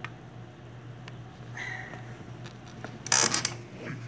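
Handling noise from the recording phone being shifted: a few scattered clicks and a loud rustling scrape about three seconds in, over a steady low hum.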